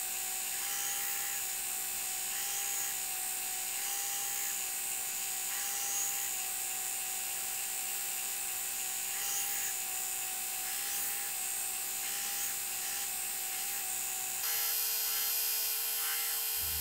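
Belt grinder running steadily with a high whine while a steel knife blade is ground against the abrasive belt.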